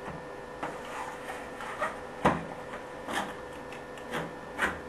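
A new single-handle kitchen faucet being set onto the deck of an old metal sink: about half a dozen short knocks and scrapes as its base and supply tubes bump the sink, the loudest about two seconds in.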